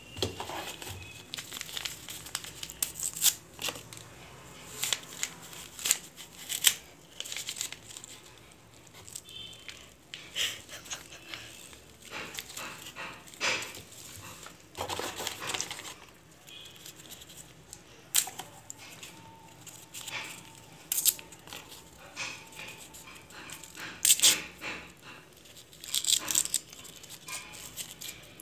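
Crumpled lined notebook paper rustling and crinkling in irregular bursts as it is handled, pulled out of a small cardboard box and unwrapped.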